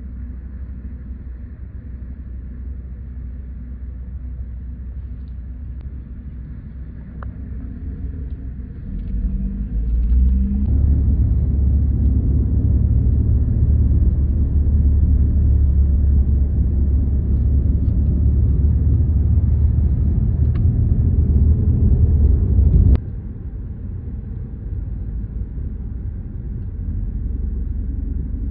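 Low rumble of road and tyre noise inside a moving car's cabin. It swells about a third of the way in, stays loud for some twelve seconds, then drops suddenly to a quieter rumble.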